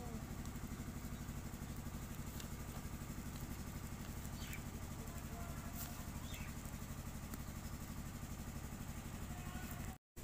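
A steady low engine hum with a fast, even pulse, like an engine idling, with a few faint short chirps over it; the sound drops out completely for a moment near the end.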